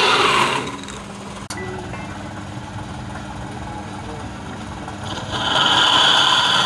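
Wood lathe running with a steady motor hum, louder for a moment at the start and again for the last second and a half, as when a tool or abrasive bears on the spinning workpiece.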